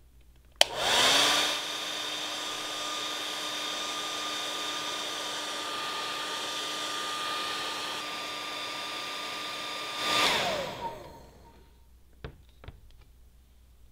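Handheld hair dryer switched on with a click, its motor whining up to speed and then blowing steadily for about nine seconds. It is switched off and the whine falls away as the motor spins down, followed by a few light clicks near the end.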